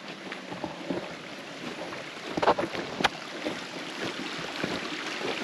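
Side-by-side UTV creeping up a snowy trail toward the listener, a steady noisy running sound that grows a little louder as it nears. Two sharp cracks come about halfway through.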